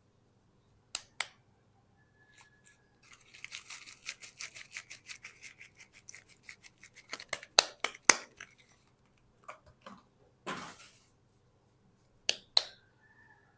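Bars of soap and their wrappers being handled and opened: a few seconds of rapid scratching strokes, about six a second, set among sharp clicks and taps and a short rustle.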